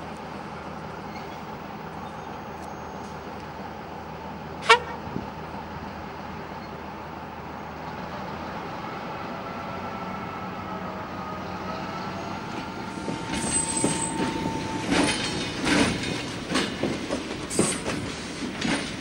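LDH-Faur diesel-hydraulic shunting locomotive moving slowly with a steady engine drone, broken about five seconds in by one very short, sharp, loud sound. Toward the end the hopper wagons roll past with a loud, irregular clatter of wheels knocking over rail joints and points, and a faint wheel squeal before it.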